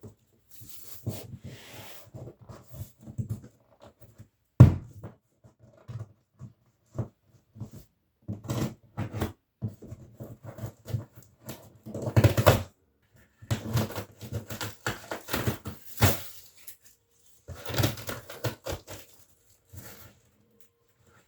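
Cardboard shipping box and packing being handled and pulled open: irregular rustling, scraping and handling noises, with a sharp knock about four and a half seconds in.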